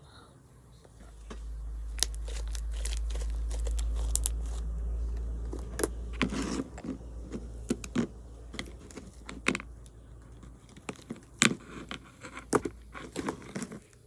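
Pink homemade slime being stretched and squished by hand, giving off many short sharp clicks and crackling pops. A low rumble runs through roughly the first half.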